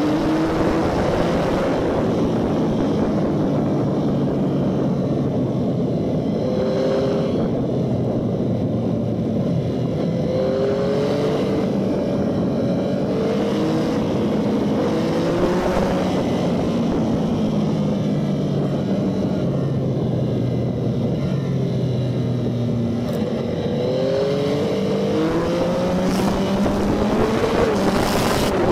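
Motorcycle engine heard from the rider's own bike, its pitch climbing and falling again and again as it revs through the gears, over a steady rush of wind and road noise.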